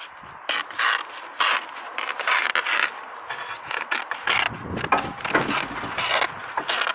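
Roofing underfelt and slate tiles being handled close by: a run of irregular scrapes and rustles starting about half a second in, with heavier, lower handling noise in the second half.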